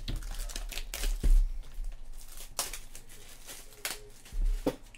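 A sealed cardboard trading-card box being handled and turned over on a table: rustling and crinkling of its wrapping, with a knock about a second in.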